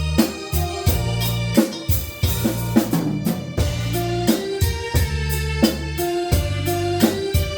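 Live band music: a drum kit keeping a steady beat with snare hits over electronic keyboard or organ chords and sustained low bass notes.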